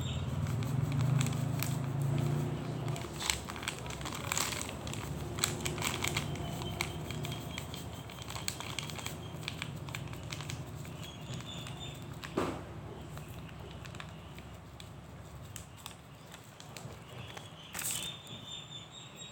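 Close-miked eating sounds: scattered clicks and crackles of chewing and mouth noise, with some crinkling. A low hum runs through the first three seconds.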